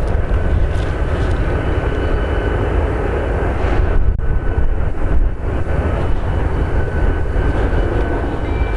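Diesel-hauled freight train running, a steady low rumble with faint high tones drifting in and out.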